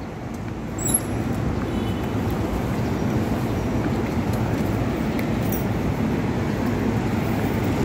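Steady city street noise: a constant low rumble of traffic, with a short click about a second in.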